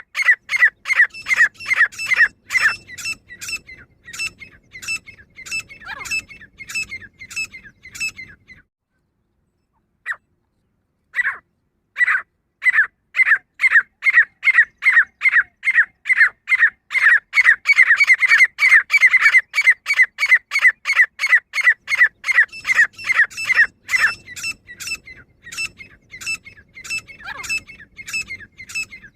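Female grey francolin calling: a fast run of sharp, repeated notes, about three a second. The run breaks off for a few seconds about a third of the way through, with a couple of single notes in the gap, then starts up again.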